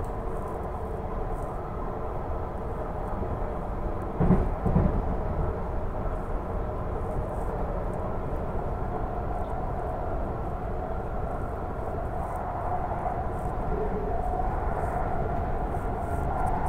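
Running noise heard from inside a moving Vancouver SkyTrain car: a steady rumble with a faint whine that rises slightly near the end. Two thumps about four seconds in are the loudest sounds.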